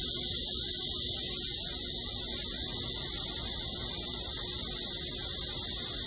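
Pond fountains spraying, their water falling back onto the pond in a steady, high hiss.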